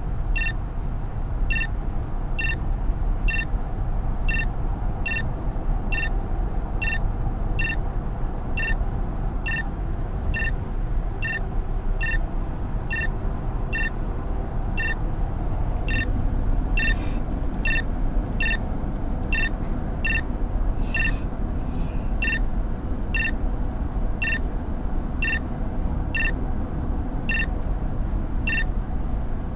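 Steady road and engine noise inside a moving car, with a short electronic beep repeating evenly a little faster than once a second. Two brief hisses come about halfway through.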